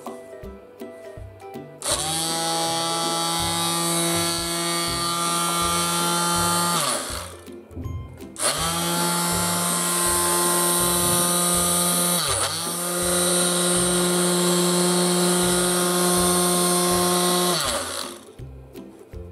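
Black+Decker BEW230 55 W mouse detail sander running unloaded in the hand with a steady motor hum. It spins up about two seconds in, winds down and stops around seven seconds, starts again a second later, dips briefly midway, and winds down near the end. Background music with a steady beat plays throughout.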